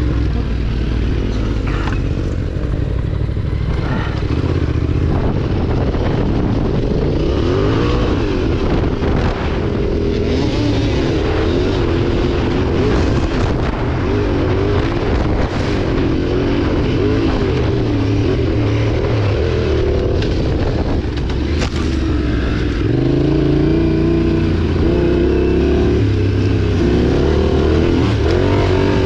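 Motorcycle engine running under changing throttle, its pitch rising and falling continuously, over a heavy low rumble.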